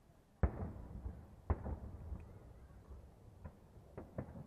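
Aerial firework shells bursting: a loud boom about half a second in, another about a second later, then several lighter bangs near the end, each trailing off in a low rumble.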